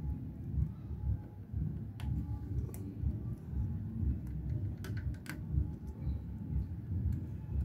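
A steady low rumble with a few sharp clicks and taps: one about two seconds in, another near three seconds, and three in quick succession around five seconds in.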